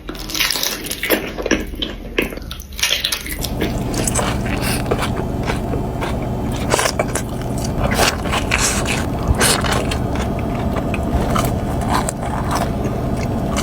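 Close-miked mouth sounds of biting and chewing a Flying Dutchman, beef patties with melted cheese and onions, with many short wet crackles. About three seconds in, a steady low hum comes in underneath the chewing.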